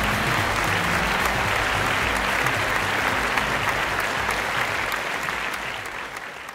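Audience applauding, a dense steady patter of many hands clapping that fades out near the end.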